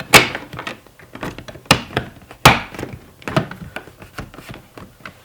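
Sharp clicks and knocks from the plastic door-panel trim being pressed and fitted back into place, a few louder knocks among many smaller clicks, going quiet near the end.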